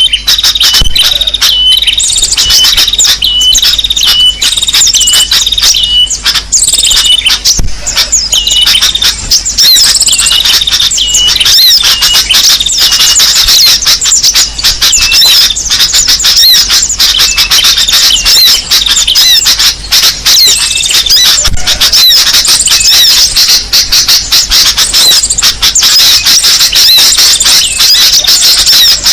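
Loud, dense chorus of small songbird chirps and twitters, the kind of mixed call recording played as a lure (pikat) to draw in small birds. A short high note repeats about twice a second at first, then many rapid overlapping chirps take over.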